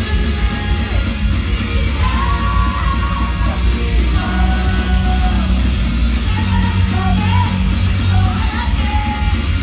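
Live idol group song played loud through a club PA: female voices singing into microphones over a heavy bass beat.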